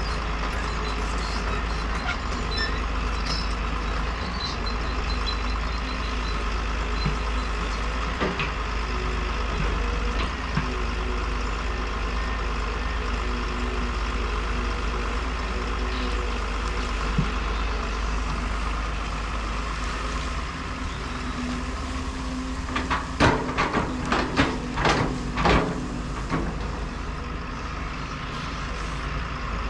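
Caterpillar tracked excavator's diesel engine running steadily as the machine works the dirt. Near the end comes a quick series of loud knocks and clanks.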